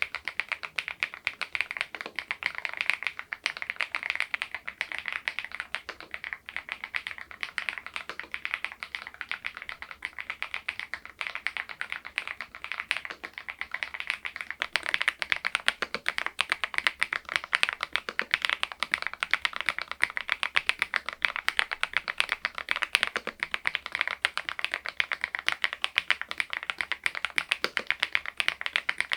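Continuous fast typing on an Epomaker TH80 V2 Pro mechanical keyboard with its stock keycaps: a dense run of keystroke clacks, many a second, a little louder from about halfway through.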